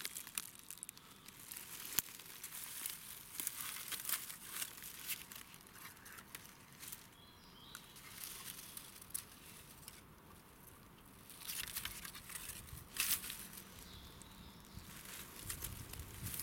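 Dry leaf litter and twigs crackling and rustling in irregular bursts as someone moves through the undergrowth on foot.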